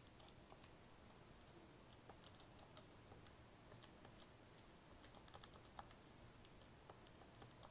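Faint, irregular clicks of calculator buttons being pressed, a few a second, as a sum is keyed in.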